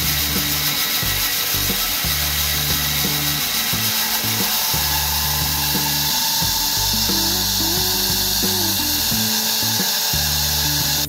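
Band saw running steadily and cutting through a small block of wood. Background music with a changing bass line plays underneath.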